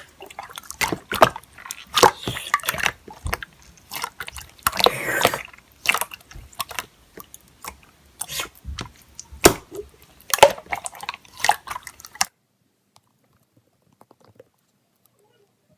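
An irregular series of sharp clicks and wet-sounding smacks that stops suddenly about twelve seconds in.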